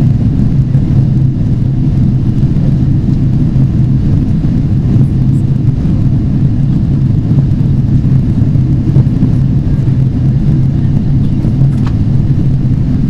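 Cabin noise inside a Boeing 777-300ER on descent: a steady, loud low rumble of airflow and engines.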